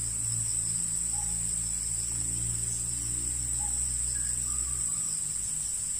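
Insects in the forest keep up a steady, high-pitched chorus, crickets or cicadas, with a faint low hum underneath that stops about five seconds in.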